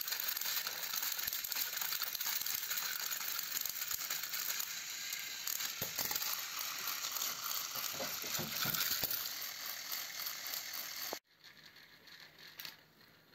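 Battery-powered toy train engines running on plastic track: a steady whirring gear rattle from the small motors and wheels, with a few knocks along the way, that stops abruptly near the end.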